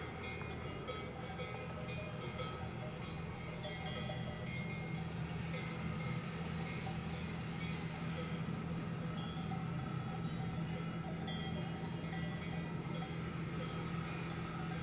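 Cowbells on grazing cows clanking irregularly, over the steady low hum of an electric He 2/2 rack-railway locomotive pushing its carriages uphill. The hum grows slowly louder as the train approaches.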